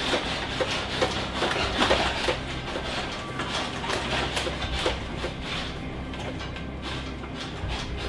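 A stopped bus rattling and clattering hard throughout: its body, seats and fittings knock irregularly over a low rumble, as the bus is shaken by an earthquake.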